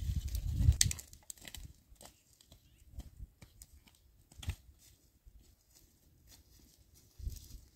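Scattered sharp snaps and rustles of dry sticks and leaf litter being handled, dragged and stepped on while firewood is gathered on a hillside. A low muffled rumble fills the first second, and another comes near the end.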